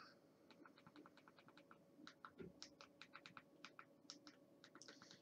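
Faint clicking of remote-control buttons pressed in quick, irregular succession, up to about four a second, stepping the highlight across an on-screen keyboard.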